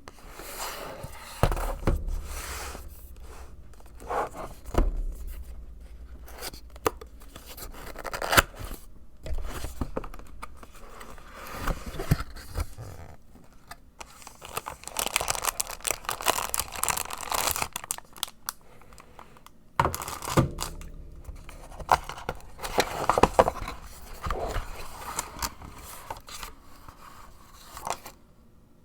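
Mechanical keyboard packaging being opened and handled: cardboard and plastic rustling, scraping and tearing in irregular bursts, with scattered sharp knocks.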